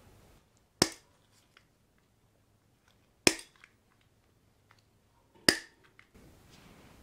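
Three sharp clicks, a couple of seconds apart, each dying away quickly.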